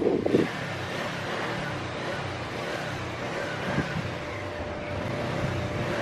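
Suzuki GSX250R's 248 cc parallel-twin engine idling steadily with the bike standing still.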